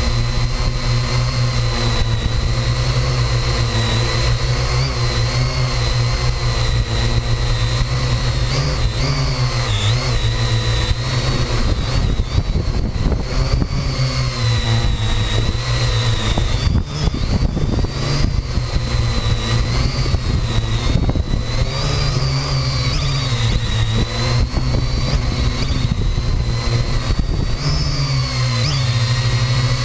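Parrot AR.Drone 2.0 quadcopter's four electric motors and propellers, heard close up from a camera mounted on the drone: a steady high whine over a low hum. The pitch wavers and dips briefly a few times as the motors speed up and slow down while the drone descends and manoeuvres.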